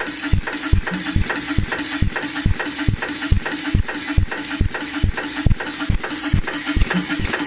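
KINGSWICK automatic rhinestone setting machine running, its setting head striking in a steady rhythm of about two and a half strokes a second as it places rhinestones on fabric, over a constant mechanical hum.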